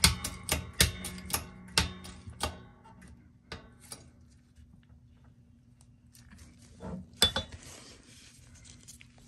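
Metal parts and tools clinking and tapping as a steering stabilizer shock is fitted onto its mounting bracket. A quick run of sharp clinks with brief ringing comes first, then a few scattered ticks, and two knocks about seven seconds in.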